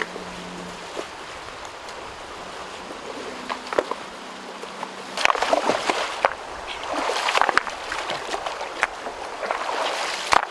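Water splashing and sloshing in a shallow stream in irregular bursts from about halfway through, over a steady trickle of flowing water.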